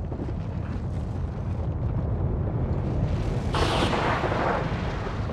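Eyjafjallajökull's explosive eruption: a continuous low rumble from the ash vent, with a louder blast about three and a half seconds in as ash and rock are thrown out.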